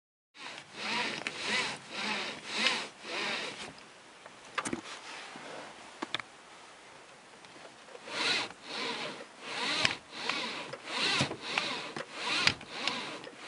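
Front seatbelt webbing repeatedly pulled out and run back through its guide, making rubbing, squeaky strokes in two runs, with a couple of sharp clicks between them.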